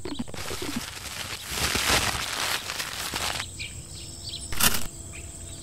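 Cartoon sound effects: a loud rush of noise for about three and a half seconds, then quieter, with faint little chirps and one sharp crack about four and a half seconds in.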